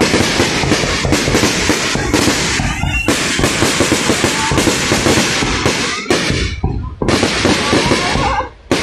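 Aerial fireworks barrage: a dense, rapid stream of overlapping bangs and crackles from bursting shells, with brief lulls about three and six and a half seconds in and again just before the end.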